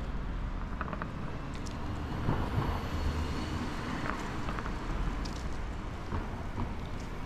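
Street traffic: a car driving past at low speed over a steady traffic hum, swelling about two seconds in, with faint clicks of footsteps on the pavement.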